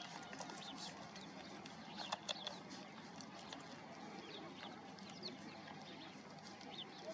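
Puppies suckling at their mother's teats: faint wet smacking clicks with small high squeaks, and a couple of louder clicks about two seconds in.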